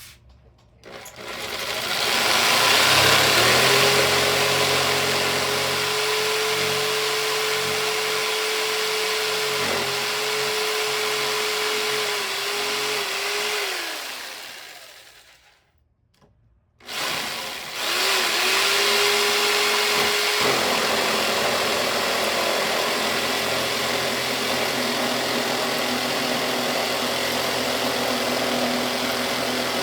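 Jigsaw cutting a wooden board: the motor starts with a steady whine and cutting noise, slows and winds down to a stop about halfway through, then starts again after a short pause and keeps cutting.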